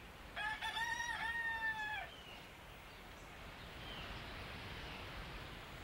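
A rooster crows once, a call about a second and a half long that drops in pitch at the end, followed by faint outdoor background with a few soft bird chirps.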